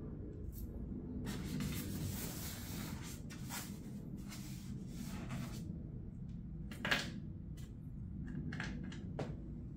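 Diecast 1:200 Airbus A380 model being worked out of its polystyrene foam packaging tray: foam scraping and rubbing against the plastic model in the first half, a sharp knock about seven seconds in, and a few lighter clicks near the end.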